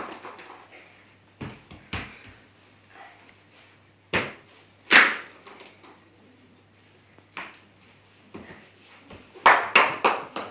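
Scattered sharp knocks and thumps on a hard floor, about six spread out, then a quick run of several together near the end as the cat dashes across.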